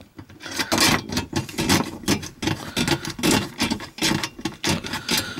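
Hand ratchet with a 10 mm socket clicking fast as it backs a nut off a sheet-metal access plate, several clicks a second.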